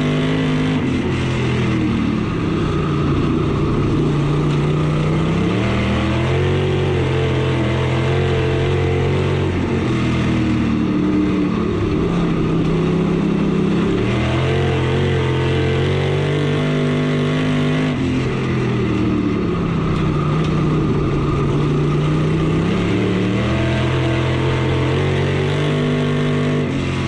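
IMCA stock car's V8 engine, heard from inside the cockpit on a dirt oval. The revs fall away into each turn and climb again down each straight, about three times over.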